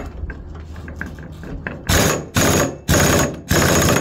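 Impact wrench hammering the nut onto the pulley of a garden tractor's bevel gear box shaft. It fires in four short, loud bursts about half a second apart, starting about two seconds in, after a little handling noise.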